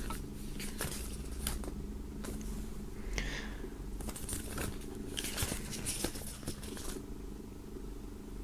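Pages of a printed CD booklet being turned and handled, with soft paper rustles and small taps, over a steady low hum.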